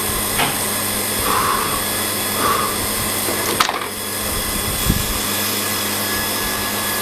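Steady electrical hum and fan-like noise of running welding equipment, with a few short clicks and knocks about half a second, three and a half and five seconds in.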